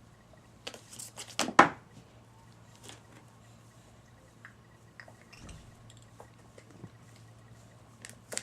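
Scattered clicks and knocks of objects being handled, with a louder clatter about a second and a half in, over a low steady hum.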